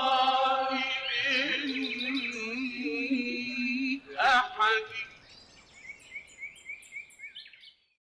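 The end of a background song. A singing voice holds a long, wavering note, then a short sung phrase follows about four seconds in. After it comes a quick run of small bird-like chirps, and the track fades out just before the end.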